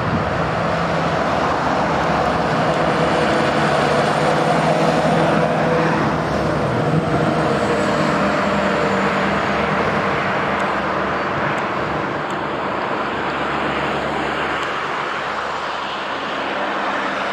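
Diesel engine of a heavy fire-service rescue truck running as it drives past below, mixed with the steady noise of road traffic; loudest in the first half, then easing off as it moves away.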